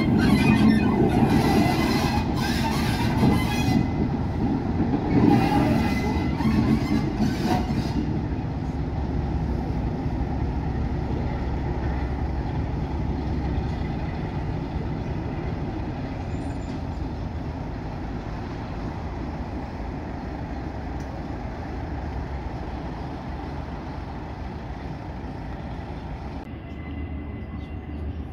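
Class 47 diesel-electric locomotive's Sulzer V12 engine running as the loco moves away, loud for the first several seconds and then settling into a steadier, quieter engine sound that keeps fading.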